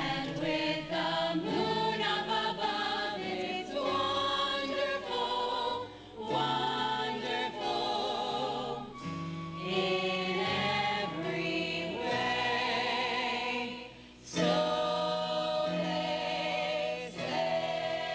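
Women's voices singing a Broadway show tune together, with held notes and wide vibrato and brief breaks between phrases.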